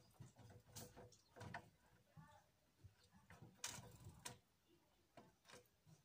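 Faint, irregular ticks and taps of a great tit's beak pecking at bread and its claws on a cardboard feeder tray, with the loudest cluster of taps a little past halfway.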